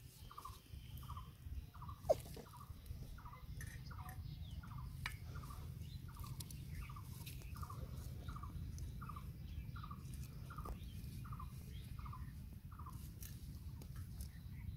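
A bird calling a short, slightly falling note over and over, about two and a half times a second, stopping near the end, over a steady low rumble. One sharp click about two seconds in.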